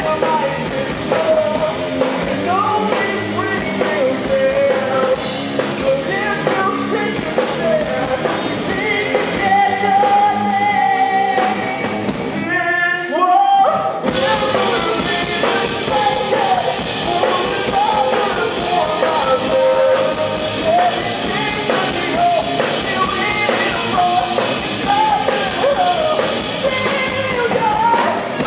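Rock band playing live: drum kit, guitars and bass with sung vocals, loud and steady. About twelve seconds in, the high end drops out for a second or two with a sliding pitch, then the full band comes back in.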